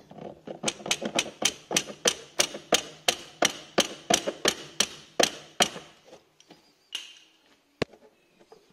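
Quick, even taps, about three a second for some five seconds, knocking a scooter ignition coil's spark plug cap down to seat it on the spark plug. A single knock follows, then a sharp click near the end.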